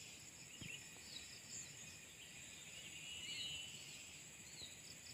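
Faint forest ambience: a steady high insect drone with short bird chirps scattered through it.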